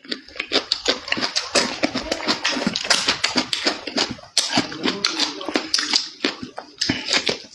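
Close-miked eating: wet chewing and lip-smacking, a rapid, irregular run of clicks.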